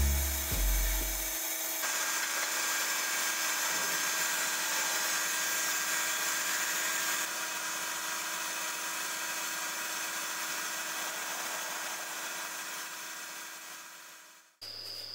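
Profiling lathe cutting into a dried mountain-cherry cup blank: a steady hiss of the cut over the machine's faint hum. It is strongest in the first half, then fades and cuts off abruptly near the end. A few low music notes are heard in the first second or so.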